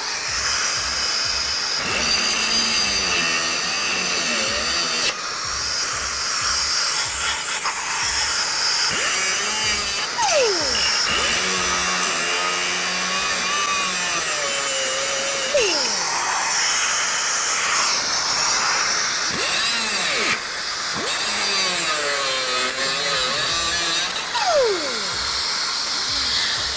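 Cutoff wheel slicing through the steel leaf-spring hanger on a GM C1500 truck frame: a steady high whine and grinding whose pitch dips and bends as the disc bites, with a few short breaks and falling-pitch spin-downs between cuts.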